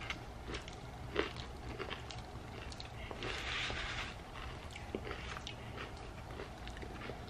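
Close-miked chewing of a mouthful of food with the mouth closed: soft, scattered wet clicks and smacks. A brief paper-napkin rustle about three seconds in.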